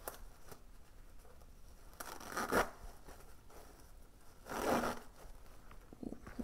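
Plastic wrapper of a large sanitary pad being peeled open at its adhesive tab and unfolded, crinkling and tearing, with two louder rustles about two seconds and four and a half seconds in.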